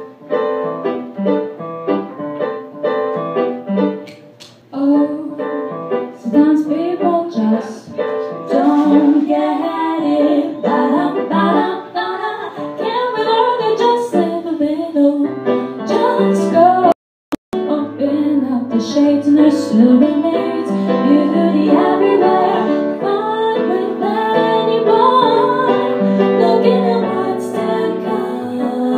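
Live pop-jazz song: female singing accompanied by a Yamaha electric keyboard played with a piano sound. The sound cuts out for a split second about halfway through.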